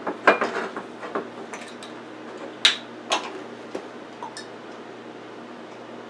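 Sharp clicks and clinks of kitchen handling: the cap twisted off a glass olive oil bottle, and metal measuring spoons and a measuring cup knocking on the counter. The loudest knock comes a little over two and a half seconds in. After about four and a half seconds only a faint steady low hum remains.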